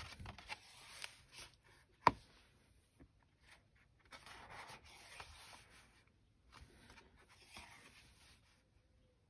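Thick watercolour-paper pages of a Moleskine sketchbook being turned by hand, rustling and sliding in several passes, with one sharp click about two seconds in.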